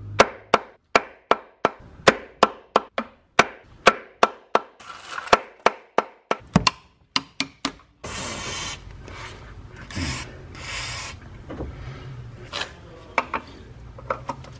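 Hand tools working a corroded high-voltage cable fitting on a Tesla drive unit: regular sharp metal taps, about two or three a second, then from about eight seconds in a rough scraping and rubbing of metal on metal, with a low steady hum underneath.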